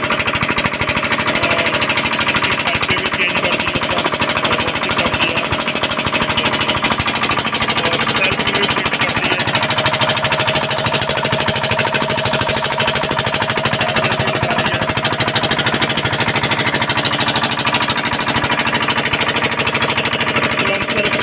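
Old 6 kW generator engine running steadily, with a rapid, even knocking beat.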